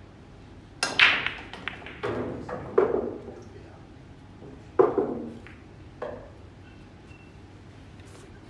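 Break shot in nine-ball pool: the cue ball smashes into the racked balls about a second in, followed by a run of sharp ball-on-ball clacks as the rack spreads. Another loud clack comes near five seconds, and a smaller one about a second later.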